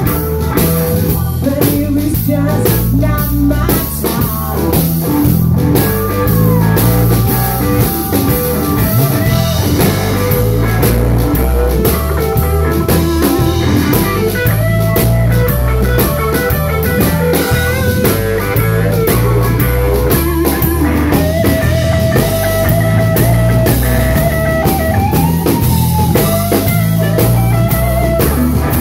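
Live blues band playing an instrumental passage: electric guitar lead with bent notes over electric bass and drum kit.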